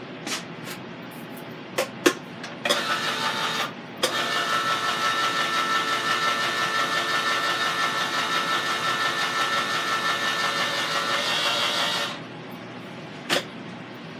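Hamilton Beach electric can opener's motor running as it turns a can and cuts the lid off without leaving a sharp edge: a short run about three seconds in, then a steady whine for about eight seconds that stops suddenly. A few clicks of the can and lever come before and after.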